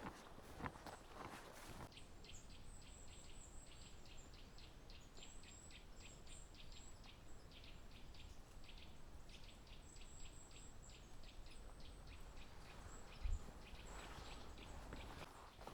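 Faint footsteps on a forest trail stop, and a small bird calls in a long run of short, high chirps, about four a second. The footsteps start again near the end, after a soft low thud.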